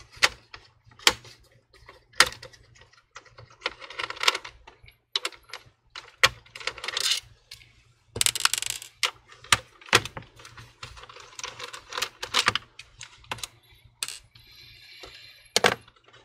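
Hands working inside an opened all-in-one desktop computer: an irregular run of sharp clicks and taps, with short scraping rattles, as small plastic and metal parts and cables are handled and freed from their clips.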